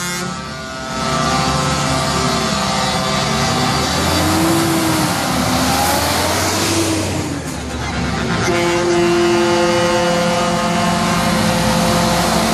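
Volvo FH tractor units' diesel engines running as the trucks drive past one after another, loudest as the first goes by about six seconds in. Pitched tones waver over the engine noise, then hold steady in the second half.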